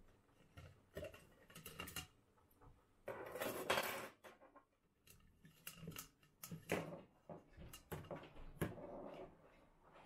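Hand blender parts being handled on a kitchen counter: metal whisk attachments clinking and the plastic beaker and blender body knocking as they are taken out and set down, with the power cord rustling. The loudest stretch is a longer scraping rattle about three to four seconds in.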